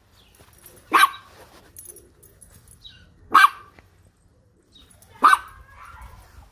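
A dog barking three times, short sharp barks about two seconds apart.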